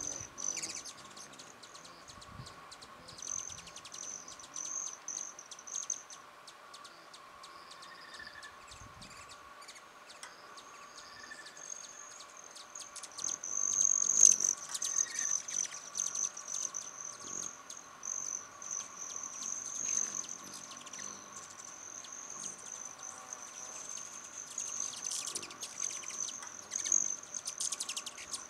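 Hummingbirds around a feeder: a high, steady, cricket-like buzzing trill that swells and fades, with scattered sharp chip notes, loudest about halfway through.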